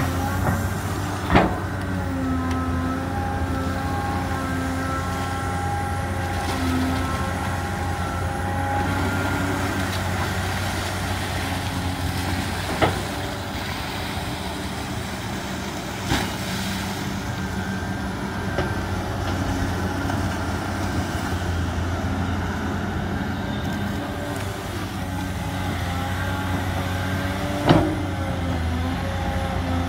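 Cat hydraulic excavator running steadily at working revs with a deep engine hum, and a whine from the hydraulics that shifts in pitch as the boom and bucket move. Four sharp knocks come through, spaced out, as the bucket works.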